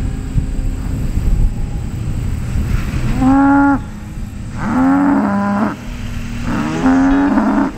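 Dairy cow mooing three times, starting about three seconds in: a short call, then two longer ones of about a second each. She has just been moved to an unfamiliar farm.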